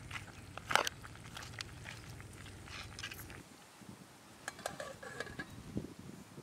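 Red plastic spatula stirring mutton pieces in an aluminium pot, with scraping and knocking against the pot. About five seconds in, an aluminium lid is set on the pot with a short metallic clink and ring.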